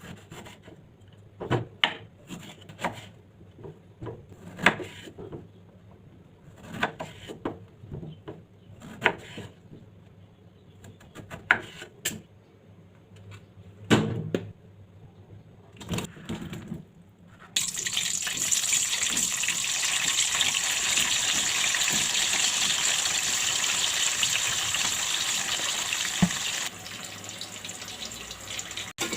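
Scattered short knocks and clatters of kitchen handling, then a little past halfway water running steadily from a kitchen tap into a sink, dropping to a lower flow near the end.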